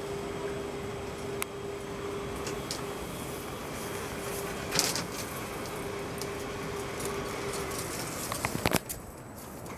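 Electric drive of an inclined lift running with a steady hum and a held tone, with occasional clicks. The tone stops about eight seconds in, followed by a quick cluster of knocks, and then the sound drops.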